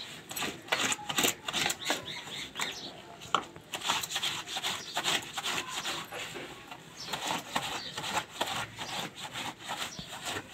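Hand-washing laundry: a stiff plastic scrub brush worked in quick, repeated back-and-forth strokes over wet cloth laid on a concrete washing slab, a rough rasping scrub.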